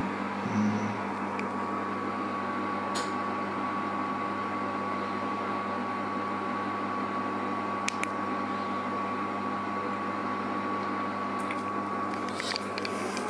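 Induction hob heating an empty cast-iron grill pan: a steady fan hum with a thin, constant whine, and a couple of light clicks.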